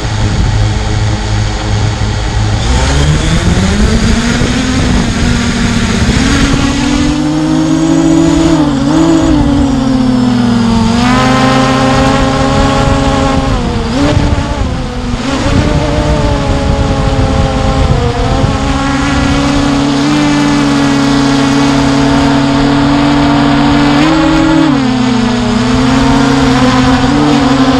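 Hubsan H501S quadcopter's brushless motors and propellers, heard up close from a camera mounted under the drone. The hum sits low at first, then rises in pitch about two and a half seconds in as the drone takes off. After that it holds a steady hum whose pitch rises and dips as the drone climbs and manoeuvres.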